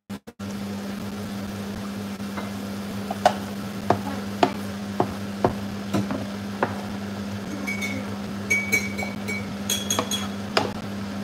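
A wooden spatula stirs courgettes in a frying pan, knocking against the pan in a run of sharp taps about every half second. A few short ringing clinks of utensil on pan come near the end, over a steady low hum.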